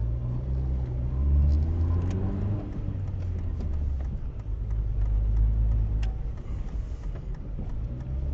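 Car engine and road noise from a moving car, a steady low hum, with the engine pitch rising for about a second after the first second and a half.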